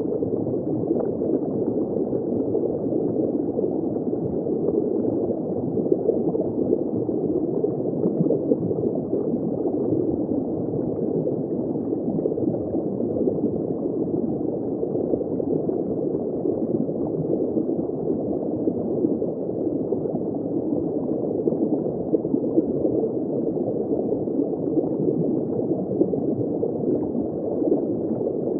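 Water bubbling and gurgling heard from shallow underwater: a steady, dense, muffled churn with no high sounds.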